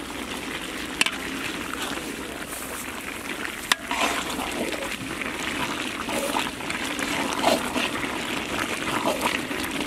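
Peanut chicken curry bubbling and boiling in a large iron kadai while a long metal ladle stirs through it. The ladle gives two sharp clanks against the pan, about a second in and just before four seconds.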